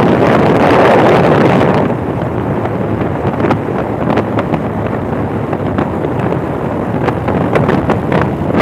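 Wind rushing and buffeting over the phone microphone of a motorcycle moving at speed, with road noise underneath. It is loudest for the first two seconds, then eases slightly.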